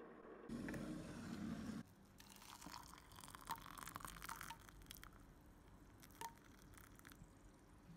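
Hot water poured from a kettle into a mug: a brief louder rush of noise near the start, then a patter of small splashes, drips and clicks.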